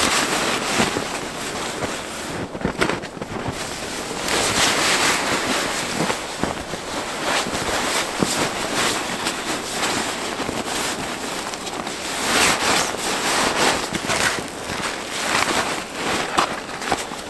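Fabric and camping gear rustling in irregular bursts as a tarp or bedding is bundled up and packed away.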